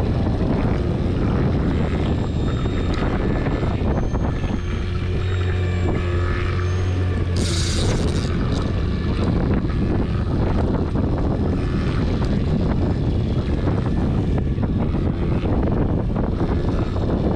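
Boat motor running steadily, with wind buffeting the microphone. A brief high hiss cuts in about seven seconds in.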